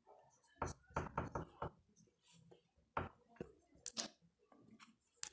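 Faint, irregular clicks and taps, about a dozen short sharp ones scattered over a few seconds.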